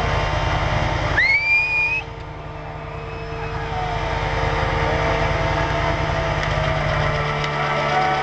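Trabant engine revving hard during a burnout. About a second in, a brief high squeal rises in pitch, and the engine noise drops for a moment before building up again.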